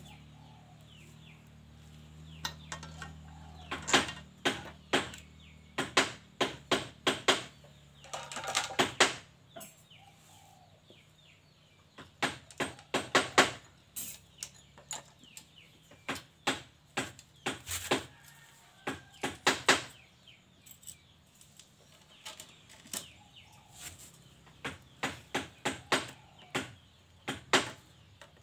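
Chain and guide bar of a Stihl 070 chainsaw being handled and fitted by hand, engine off: clusters of sharp metallic clicks and rattles from the chain links and bar, several a second with short pauses between.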